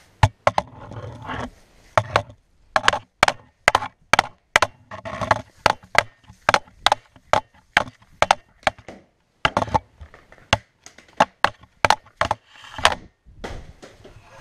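Hockey stick blade knocking a puck and the hard floor during stickhandling: a quick, uneven series of sharp knocks, with short stretches of scraping in between.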